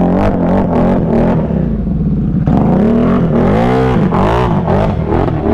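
Can-Am Renegade ATV's V-twin engine, fitted with a new aftermarket exhaust, revving up and down as it churns through mud and shallow water. The pitch swells and falls several times, with the biggest rise and fall about three to four seconds in. The rider takes it for a wet CVT belt.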